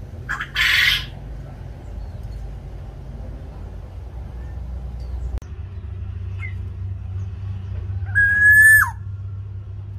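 Black-naped oriole calling: a short harsh rasping call under a second in, then near the end one loud fluty whistle that holds level and drops sharply at its close. A steady low hum runs underneath.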